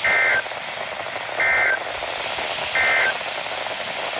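Emergency Alert System end-of-message signal over NOAA Weather Radio: three short bursts of SAME data tones, each about a third of a second long and spaced about 1.3 seconds apart, over steady radio hiss. The bursts mark the end of the severe thunderstorm warning broadcast.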